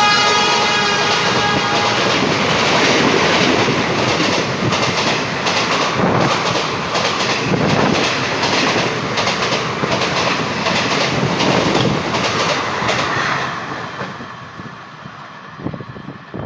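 The horn of a WAP-7 electric locomotive ends about two seconds in. Then the express coaches rush past, with a clickety-clack of wheels over rail joints that fades near the end.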